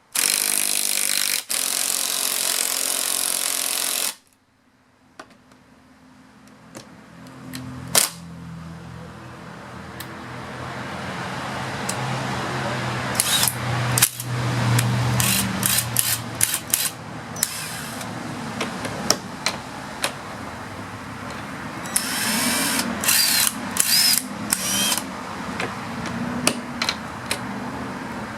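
Ryobi cordless impact drivers hammering as they drive 1/2-inch lag bolts into wood. A loud run stops suddenly about four seconds in. A second long run then builds steadily louder, broken by many sharp cracks.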